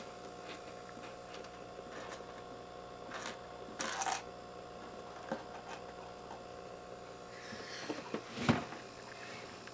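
A baby red-eared slider snapping at mealworms on the water's surface: scattered small clicks and a brief splash about four seconds in, over a steady hum. A dull thump, the loudest sound, comes near the end.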